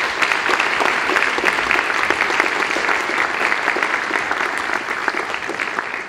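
Audience applauding steadily at the end of a talk, many hands clapping in a dense patter.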